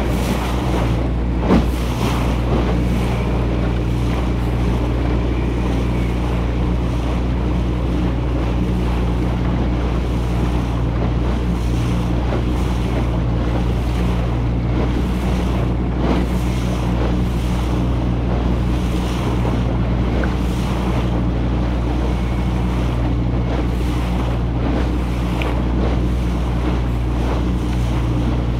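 Wooden motorboat's engine running steadily under way, with water rushing and splashing along the hull and wind buffeting the microphone. A single sharp knock about a second and a half in.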